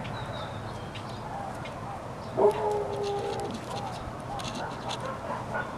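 Outdoor background of short bird chirps repeating every fraction of a second. About two and a half seconds in comes one loud, pitched animal call held for about a second.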